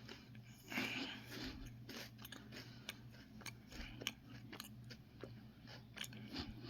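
Faint chewing and crunching of a Kit Kat wafer bar: a scatter of small crisp clicks throughout, with a louder crunch about a second in.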